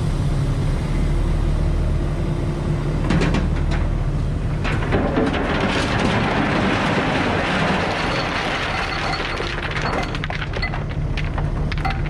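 Heavy-equipment diesel engine running steadily. From about three seconds in until near the end, a long stretch of rattling and crunching with many sharp cracks rises over it.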